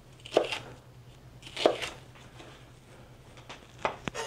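Chef's knife cutting poblano pepper on a plastic cutting board: two sharp knocks of the blade on the board, about half a second and a second and a half in, then a few lighter taps near the end.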